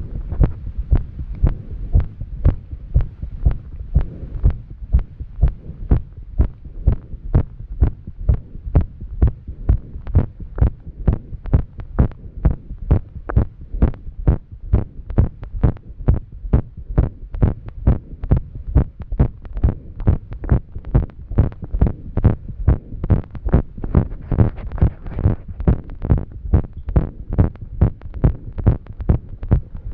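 A woman's heart beating fast, in a rapid train of low thumps, after exercise: the uploader presents it as an arrhythmia. Heavy breathing gives a faint hiss between the beats.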